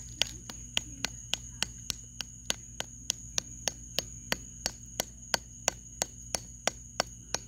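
Hammer striking a small cast copper lump lying on concrete in a steady run of sharp blows, about three a second.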